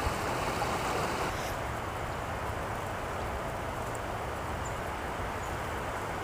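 Steady outdoor background noise, a low even hiss with no distinct events; the higher part of the hiss drops away about one and a half seconds in.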